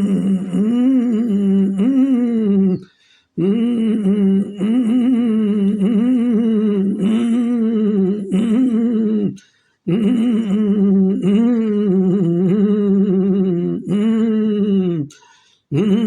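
A voice humming long, steady-pitched tones with a slight wavering, broken three times by short pauses for breath. It is a voiced throat-vibration exercise, meant to soothe an itchy throat and hold back a cough.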